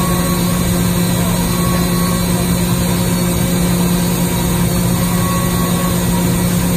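SNK HPS-120B 5-axis horizontal high-speed profiler running a machining cycle inside its coolant-misted enclosure. The sound is a loud, steady drone with one strong low tone over a wash of noise.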